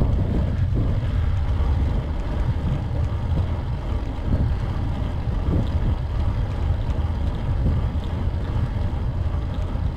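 Steady low rumble of wind buffeting the microphone on a road bike being ridden uphill on asphalt.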